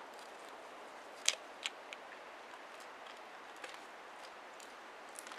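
A gray wolf chewing a pig's ear: a few short, sharp crunches, the loudest about a second in, over a steady faint hiss.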